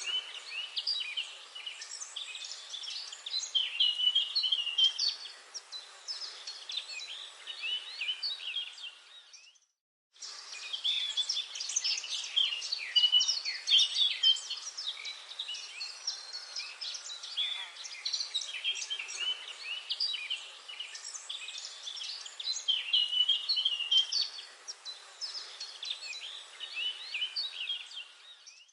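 Dense forest bird chorus: many birds chirping and trilling at once in short, overlapping high calls. The whole sound cuts out for about half a second some ten seconds in, then resumes.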